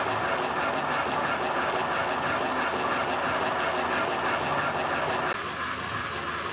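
Milling machine running with its hobbing attachment: a steady mechanical whir with a constant high whine. Its lower tones drop a little about five seconds in.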